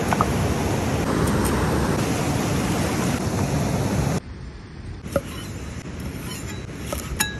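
Loud, steady rush of a fast mountain stream, which cuts off about four seconds in. After it comes quieter background with a sharp knock of a cleaver on a wooden board, and a few small knife clicks near the end.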